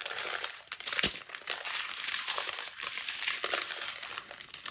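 Small plastic packets of diamond-painting drills crinkling and crackling as they are handled and sorted, with sharp clicks throughout and a louder click about a second in.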